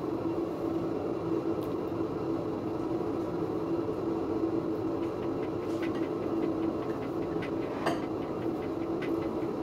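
Steady whirring hum of an electric fan running, with a few faint clicks over the second half.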